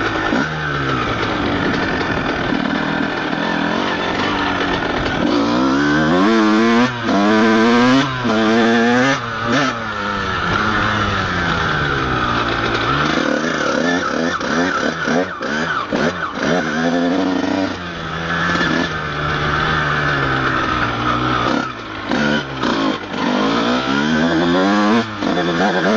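Honda CR125 two-stroke single-cylinder motocross engine being ridden, its revs rising and falling over and over, with brief drops as the throttle closes. The bike is running on a burnt clutch, which the rider gives as the reason it goes so slowly.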